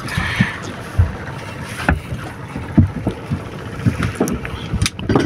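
Irregular knocks and thumps on a wooden boat deck as a freshly landed fish is handled and unhooked, over steady wind on the microphone.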